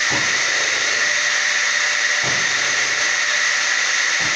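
Electric table circular saw running with a steady high whine, with three short low grumbles from the motor, near the start, midway and near the end, as the tilting-trough switch changes it between reduced-power economy mode and full power.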